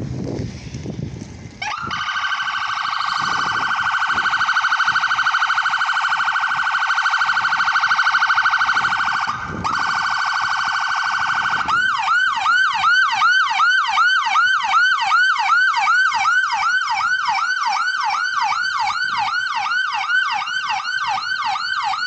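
Loud electronic siren: a very fast warble starting about two seconds in, then switching about halfway through to rapid repeated rising sweeps, two to three a second.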